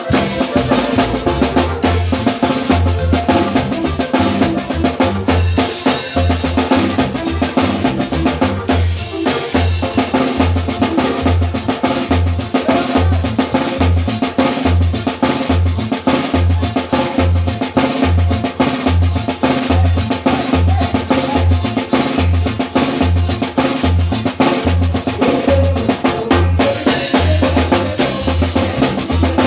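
Norteño music led by a drum kit playing a busy zapateado rhythm: regular bass-drum beats under dense snare strokes and rolls, with steady low instrument tones underneath.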